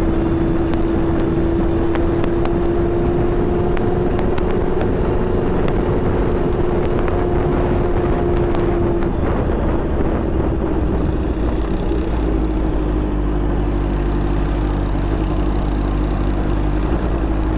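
Honda CBR650F inline-four engine running steadily while riding, under heavy wind rush. The engine note drops a little about nine seconds in.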